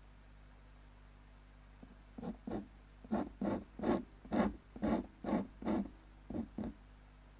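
Ink pen nib scratching across paper in short hatching strokes. About a dozen strokes, roughly two a second, begin about two seconds in.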